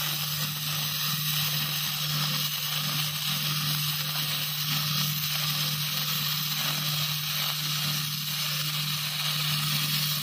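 Stick (shielded metal arc) welding with an E6013 electrode on a carbon steel flange-to-pipe joint: the arc sizzles and crackles steadily, with a steady low hum underneath.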